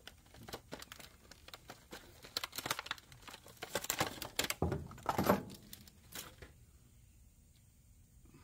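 Rustling, crinkling and small plastic clicks as a tire plug repair kit is handled, stopping about six and a half seconds in.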